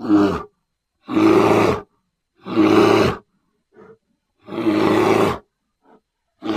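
Designed creature roars for a sabre-toothed bear, layered from grizzly bear, black bear and big-cat roars: four short, loud roars about a second apart, with two faint short sounds between them.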